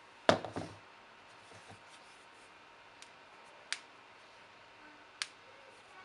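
A short crackly creak about a third of a second in, then two single sharp clicks, one a little past the middle and one near the end.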